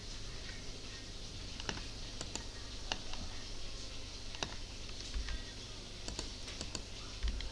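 Scattered, irregularly spaced clicks of a computer mouse and keyboard, heard over a faint steady low hum.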